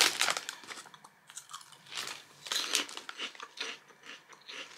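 A person chewing a crunchy wheat-based snack (Lay's BocaBits) close to the microphone: a run of crisp crunches, loudest at the first bite and then repeating irregularly as it is chewed.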